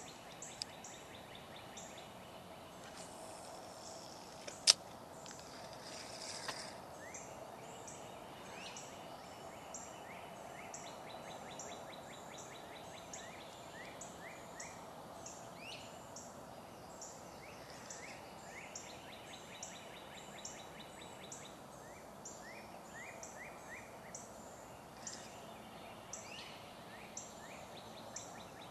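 Outdoor ambience by a creek: birds chirping in repeated series over steady background noise. A single sharp click about five seconds in.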